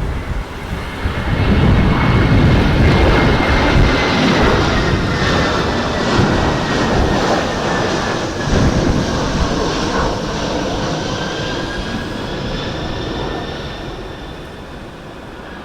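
Airbus A320's CFM56 jet engines whining and rumbling as the airliner goes by on its landing, the whine slowly falling in pitch and the sound fading in the second half. Gusts of wind buffet the microphone at the start.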